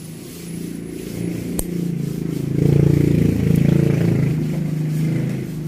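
A motor vehicle's engine running close by, swelling to its loudest about three seconds in and easing off toward the end. A single sharp snip of toenail clippers comes about a second and a half in.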